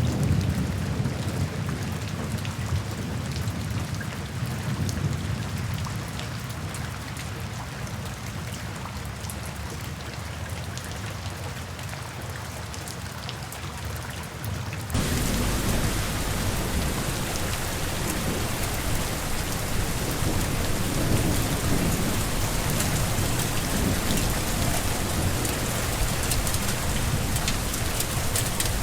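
Steady rain pattering, with a low rumble of distant thunder under it. About halfway through it cuts abruptly to heavier, denser rain, louder and brighter.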